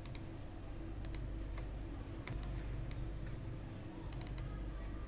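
Scattered sharp clicks from a computer being operated by hand, with a quick run of clicks about four seconds in, over a faint steady low hum.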